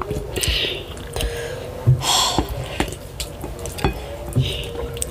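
Close-miked eating sounds of fufu with ogbono and ewedu soup, both sticky draw soups: wet, squishy chewing and lip smacks with many short sharp clicks.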